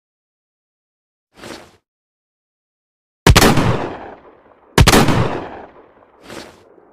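Sawn-off Rossi Overland side-by-side double-barrel shotgun fired twice, about a second and a half apart, each shot a sharp bang with a long fading echo. A much softer short noise comes before the shots and another after them.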